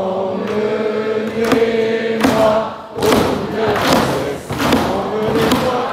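A hall full of people singing together in unison, holding long notes. About three seconds in, a rhythmic beat of strikes, about two a second, joins the singing.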